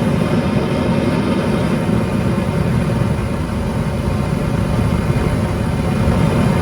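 Gas furnace burner running on propane at a low setting, a steady low rumble of the burning flame.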